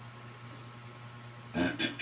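Steady low electrical hum with faint hiss. About one and a half seconds in, a short voice sound breaks in, a brief murmur of two quick parts.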